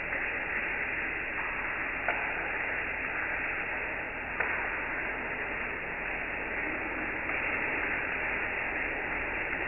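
Shower spray hissing steadily as the water hits the tiled wall and floor, with a couple of faint ticks.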